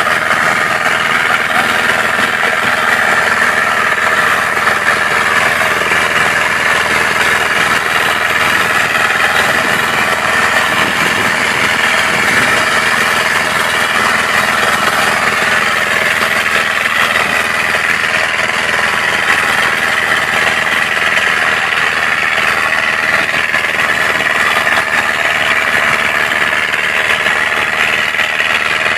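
ACE DI-6565 tractor's diesel engine running steadily under load while pulling a disc harrow through tilled soil.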